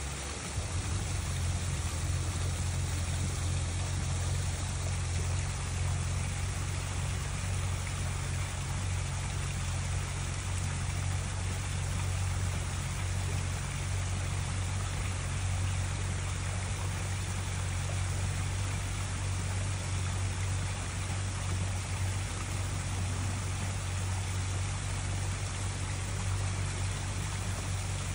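Steady trickling and splashing of water flowing into a koi pond, with a steady low hum underneath.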